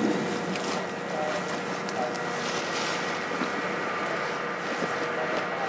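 A motor running steadily in the background under an even outdoor noise, with a couple of faint short chirps about one and two seconds in.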